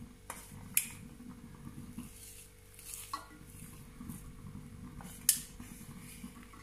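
A hand mixing thick ground dal-and-rice batter with chopped onion in a metal bowl: soft squishing and rustling, with a few sharp metallic clinks against the bowl, the loudest about five seconds in. A faint steady hum lies underneath.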